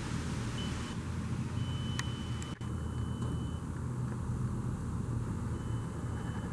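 Steady low rumble of a motor vehicle or traffic. A faint thin high tone comes and goes, and there are a couple of short clicks a little over two seconds in.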